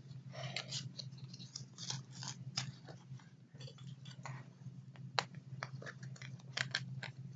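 Irregular rustling and small clicks of doll clothes and accessories being handled and packed back into a small bag, with one sharper click about five seconds in, over a steady low hum.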